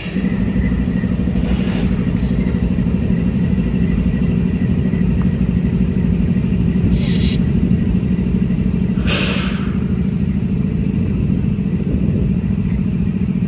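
Diesel locomotive engine running close by, a loud steady low drone that starts abruptly, with a few short hissing noises about 1.5, 7 and 9 seconds in.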